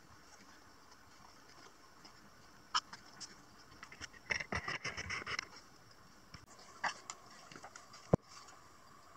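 Fingers pressing and rubbing glued letters onto a painted plywood sign: scattered small clicks, a burst of scratchy rubbing about four to five and a half seconds in, and one sharp tap just after eight seconds.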